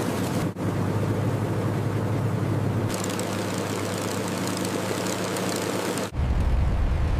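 Supermarine Spitfire's piston engine running steadily with the propeller turning on the ground. The sound drops out briefly about half a second in, then near the end turns to a deeper, louder rumble.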